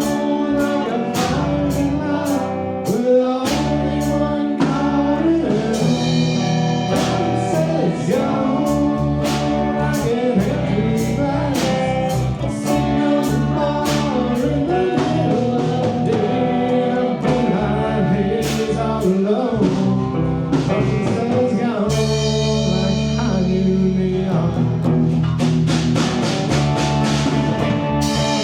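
A band playing a song: a singing voice over guitar, with a steady drum beat.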